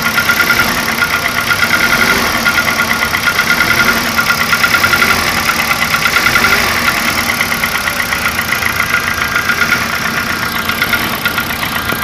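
Kia car engine idling with a rapid, even ticking and slapping noise from inside the engine. The noise is put forward as the sound of piston slap, which is heard at idle.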